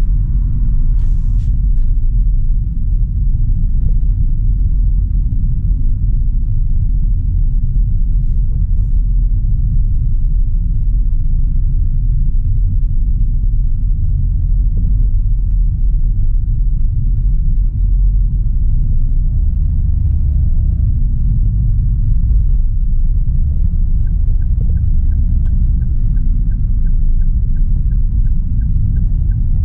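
Steady low road and engine rumble heard inside the cabin of a Toyota Avanza 1.3 CVT cruising on a highway. In the last few seconds a faint, even ticking starts, about two to three ticks a second, typical of the turn-signal indicator before a lane change.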